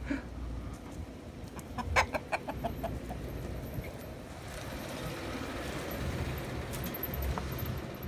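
Domestic hens clucking. The clucks come as a quick run of short, sharp notes about two seconds in.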